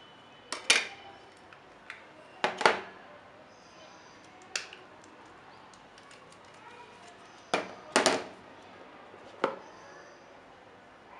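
Sharp plastic clicks and knocks from a mobile phone and its battery being handled, some coming in quick pairs, about five groups in all.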